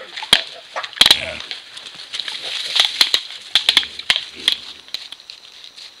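White-lipped peccary nosing at a trail camera at close range: a rapid, irregular run of sharp clicks and knocks with breathy snuffling noise between them, dying down near the end.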